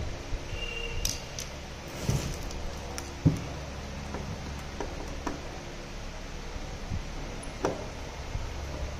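Hand screwdriver turning a screw to fasten a stand leg onto the back of a TV, with scattered small clicks and knocks of the screw and stand; the loudest knock comes about three seconds in.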